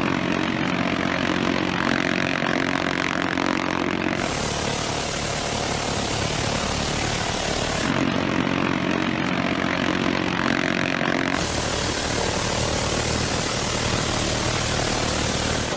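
Aircraft-mounted rotary machine gun firing two long buzzing bursts, the first about four seconds long at the start and the second about three seconds long starting about eight seconds in, over a steady propeller aircraft drone.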